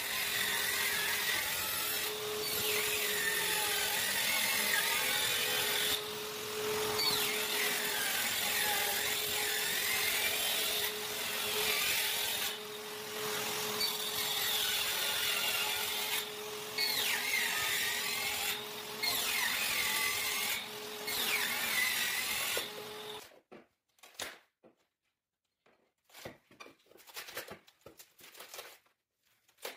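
Small circular saw cutting through floorboards with a shop vacuum drawing dust from it: a steady hum under the saw's whine, which dips in pitch and recovers again and again as the blade bites. Both stop suddenly about 23 seconds in, followed by faint scraping and clicking of a hand tool working along the cut.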